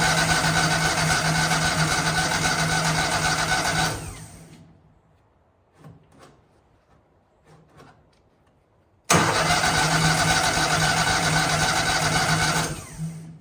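The gasoline engine of a Miller Bobcat 250 engine-drive welder cranking on its electric starter without catching: one long crank that stops about four seconds in, a pause with a few small clicks, then a second crank of about four seconds starting about nine seconds in. The engine won't fire because no fuel is reaching the carburetor, which the owner puts down to a fuel pump that has probably dried up.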